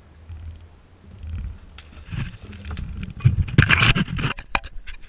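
Wind buffeting the camera microphone on a small boat, heard as a low rumble. Past the middle comes a louder run of knocks and rushing noise.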